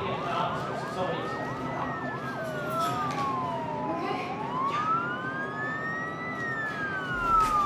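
Police car sirens wailing, two or more overlapping, each rising and falling slowly in pitch, with a short burst of quick yelping sweeps about a second in. A low rumble comes in near the end.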